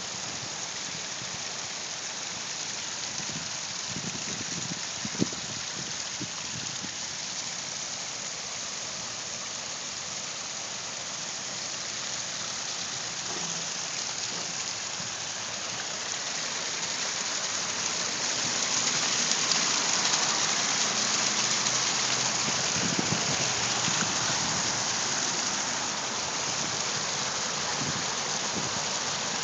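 Water pouring and splashing over a large pondless waterfall: a steady rush that grows louder for several seconds past the middle, then eases slightly.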